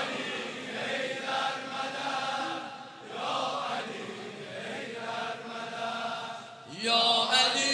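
Large crowd of male mourners chanting together in unison, growing louder about seven seconds in.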